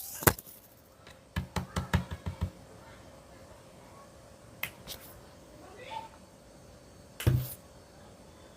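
Scattered sharp clicks and knocks: a quick run of about eight clicks about a second and a half in, two more a little later, and a heavier knock near the end.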